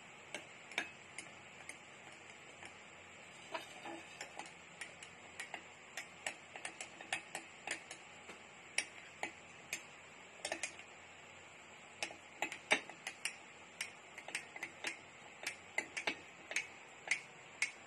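Metal spoon clinking against the inside of a drinking glass while stirring tea. The light clinks come irregularly, a few a second, with short pauses.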